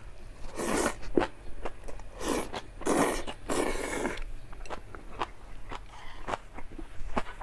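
Close-miked eating of jjajang ramyun with pa-kimchi: four loud, noisy mouthfuls in the first half, then a run of short, wet chewing clicks.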